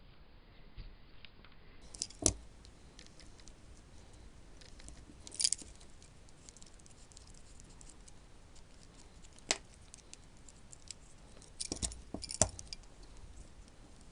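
Sparse light clicks and taps of small metal model-train motor parts being handled on a workbench: single sharp clicks about two, five and a half and nine and a half seconds in, and a short cluster of them around twelve seconds.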